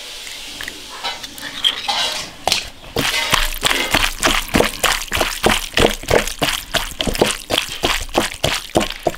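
A hand squeezing and kneading raw snakehead fish slices with egg white, salt and starch in a ceramic bowl: rapid wet squelching, about four squeezes a second, starting about three seconds in.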